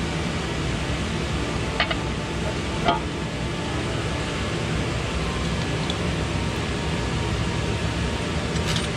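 Steady hum and hiss with two short metallic clinks, about two and three seconds in, as engine parts and tools are handled, and a few fainter clicks near the end.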